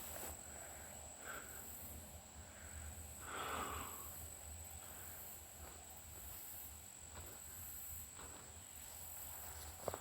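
Faint steady chorus of crickets and other insects, a continuous high buzz with a pulsing shimmer above it, with a brief rustle about three and a half seconds in.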